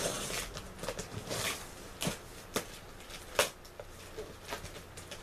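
Packing tape being cut and pulled on a cardboard shipping box: irregular scraping and rustling of tape and cardboard, with several sharp clicks.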